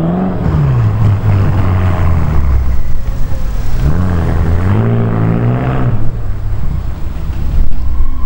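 BMW M5 F10's twin-turbo V8, breathing through a full Akrapovič exhaust, pulling away at low speed. The exhaust note drops over the first second or so, holds steady, then rises and falls again with a blip of revs about four seconds in. Near six seconds the engine note gives way to an even rushing noise.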